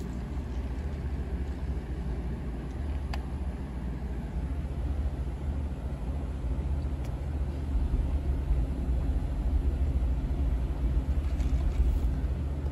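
Steady low rumble of road traffic on a busy street, heard from indoors through the window glass, a little louder in the second half.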